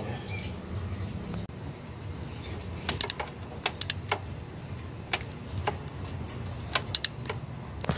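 Scattered sharp clicks and light metal taps of hand tools and parts while a starter motor is being fitted, over a low steady hum.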